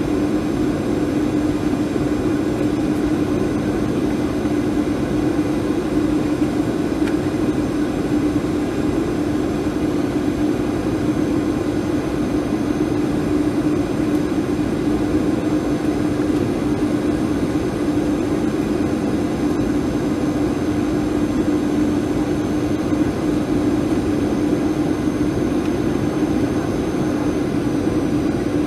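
Boeing 737-800 cabin noise on descent toward landing, heard inside the cabin beside the wing-mounted CFM56 engine: a steady rush of airflow with an even droning hum from the engines.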